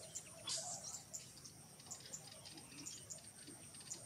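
Faint forest ambience: a steady high insect drone with scattered short chirps, and a brief louder sound about half a second in.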